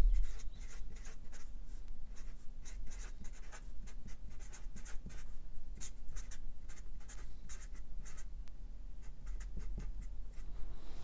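Marker pen writing on paper: an irregular run of short, quick scratching strokes as a line of words is written out.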